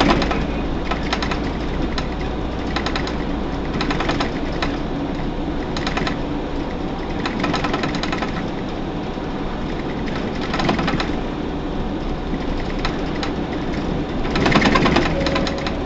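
Hino PDG-KV234N2 city bus heard from inside the cabin: a steady diesel engine drone with road noise, broken every second or two by short clusters of clattering rattles.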